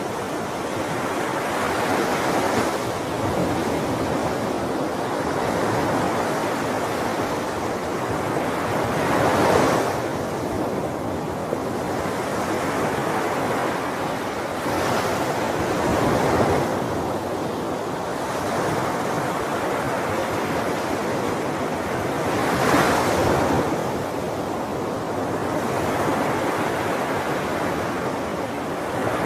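Sea waves breaking: a continuous wash of surf that swells louder as a wave breaks, about every six or seven seconds.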